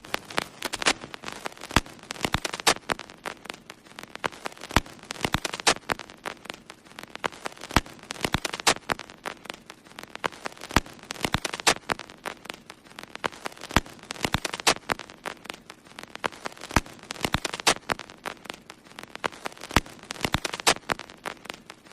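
Dense, irregular crackling: sharp clicks and pops scattered unevenly over a faint hiss, several a second.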